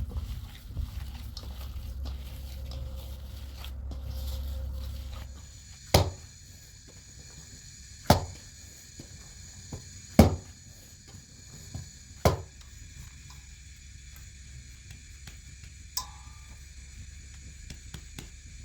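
Four sharp knocks about two seconds apart, over a steady high-pitched hum that starts about five seconds in; a low rumble before the hum.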